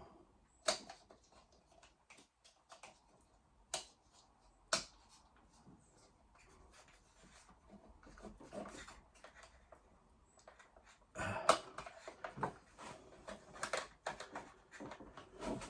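Handling noises from hands-on work: a few sharp isolated clicks in the first five seconds, then a busier run of taps, knocks and rustling from about eleven seconds in.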